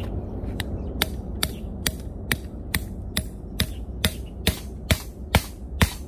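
Club hammer driving a bent steel rebar stake into the ground: a steady run of sharp metal-on-metal blows, about two a second, growing louder toward the end.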